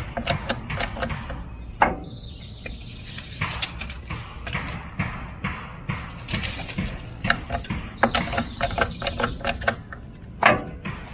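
Irregular metallic clanks, knocks and scraping as a log is worked into position on a portable sawmill's bed before being clamped.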